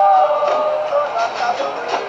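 Capoeira roda music: voices singing long held notes over sharp percussive strikes.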